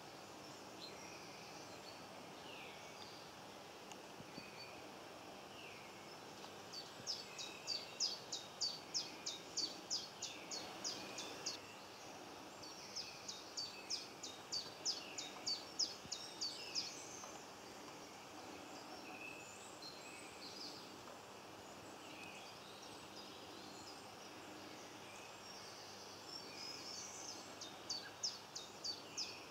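A songbird singing runs of rapid, evenly repeated high notes, about five a second, three times. Other birds chirp faintly in the background.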